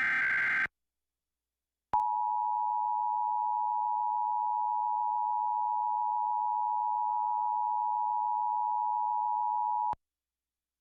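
Emergency Alert System tones: a short burst of digital header data screech ends the first second, then the two-tone EAS attention signal (853 and 960 Hz sounded together) comes in about two seconds in. It holds steady for about eight seconds and cuts off sharply.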